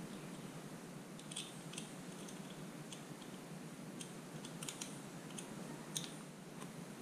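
Light, scattered clicks and ticks of fingers and a small tool working the rebound adjuster knob off the foot of a Fox 40 fork leg, over a faint steady hiss.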